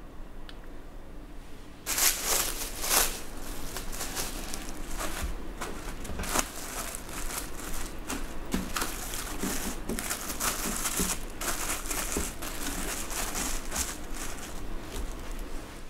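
Plastic cling film crinkling and crackling as it is stretched over a glass bowl and pressed down onto the surface of soft custard, starting about two seconds in.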